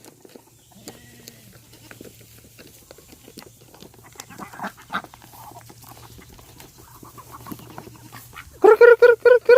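Farm animals calling at feeding time: low scattered knocks and rustling, then near the end a loud run of short, rapidly repeated calls.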